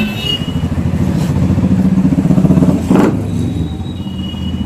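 A vehicle engine running close by, its fast pulsing growing louder toward the middle, with one sharp knock about three seconds in.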